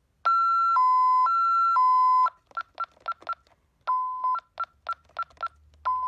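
Ademco 6160V alarm keypad sounding its alarm: a two-tone high–low warble of four half-second tones. Then a run of short single beeps as its keys are pressed to enter the disarm code, with two longer low tones among them.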